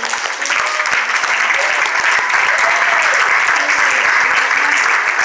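Congregation clapping and applauding, building up over the first second and then holding steady, with voices calling out over the clapping.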